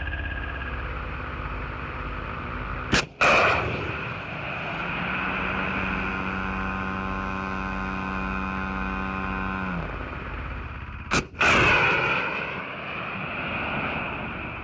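Two FIM-92 Stinger surface-to-air missile launches, about eight seconds apart. Each is a sharp crack from the launch motor ejecting the missile, a split-second gap, then the loud rushing blast of the flight motor igniting and fading over about a second. Between them a steady pitched hum runs for about five seconds and drops in pitch as it stops.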